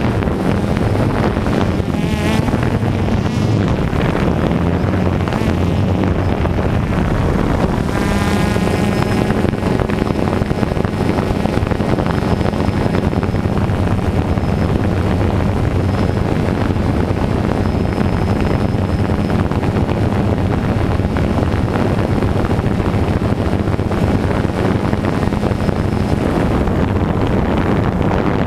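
DJI Phantom 2 quadcopter's motors and propellers running steadily in flight, a constant hum over a broad rushing noise.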